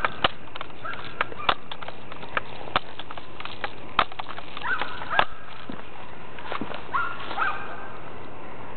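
A BB gun firing and BBs striking tin cans: a series of sharp clicks and knocks at irregular intervals, with a few short higher-pitched tones in between.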